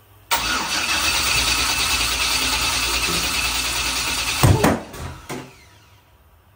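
Turbocharged 5.3-litre LS V8 cranking over on the starter for about four seconds. Near the end come a loud sudden burst and a smaller one just after, then it stops. This is a start attempt that does not settle into running.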